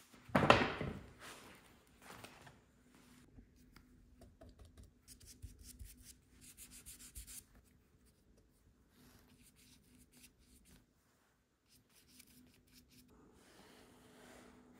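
Workshop handwork on foam padding: a blade scraping and cutting through the foam sheet, loudest about half a second in, then intermittent rubbing and scratching from brushing contact adhesive and handling the foam, quieter in the second half.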